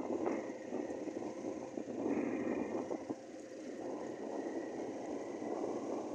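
Motor vehicle driving along an unpaved track: steady engine noise mixed with road and wind rumble.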